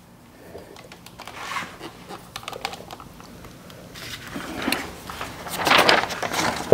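Handling noise from a hand-held camera being picked up and moved: scattered clicks and rustles, growing louder and busier in the second half.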